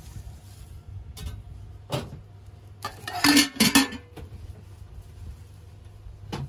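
A short clatter of metal kitchen utensils: several sharp clinks about three seconds in, over a steady low hum.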